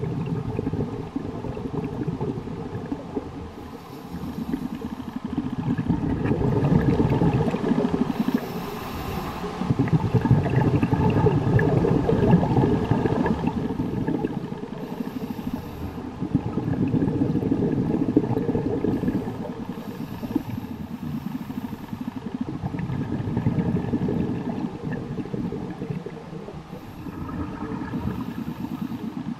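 Scuba diver breathing through a regulator underwater: rumbling bursts of exhaled bubbles with hissing breaths in between, rising and falling every few seconds.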